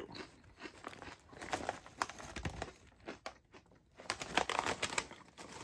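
Thick Kettle Brand potato chip bag crinkling as it is opened wide and handled, with a run of dense crackling about four seconds in.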